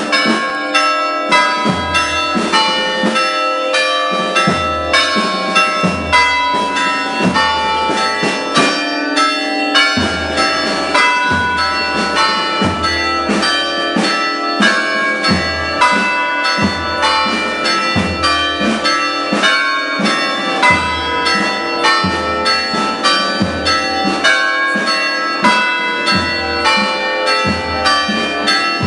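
Orthodox church bells pealing in quick, overlapping strokes, with a deeper bell sounding about once a second underneath.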